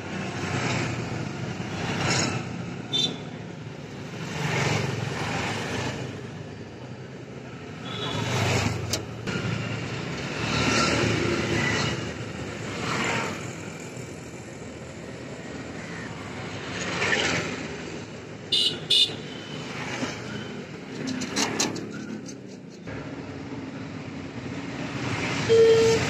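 Road traffic going by, vehicles swelling in and fading away every few seconds, with a few short sharp clicks from handling small metal parts.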